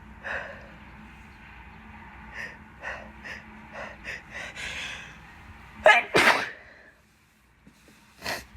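A woman sneezing: a run of short, quick in-breaths builds up, then one loud two-part sneeze about six seconds in, with a further short breath or sniff near the end.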